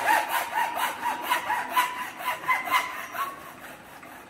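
Hacksaw with a backward-set blade cutting through PVC pipe clamped in a pipe vise. It makes rapid back-and-forth rasping strokes, about three or four a second, which grow fainter and stop near the end as the blade finishes the cut.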